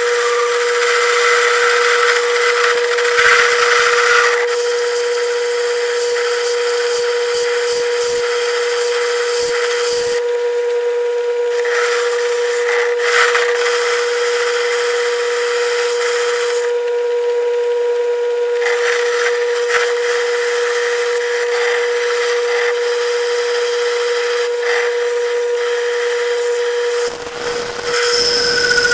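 A 1937 South Bend metal lathe runs with a steady hum while a carbide-tipped cutter turns a 2-inch metal bar. A hissing cutting noise comes and goes in stretches of several seconds.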